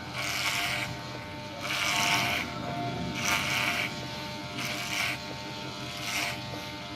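Electric hair clipper with a guide comb buzzing steadily. About five times it gets louder and harsher for under a second as it is pushed up through the hair.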